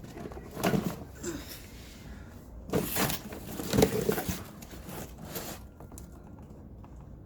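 Handling noise from a box of parts and its packaging: a handful of short rustles and knocks, the loudest around three to four seconds in.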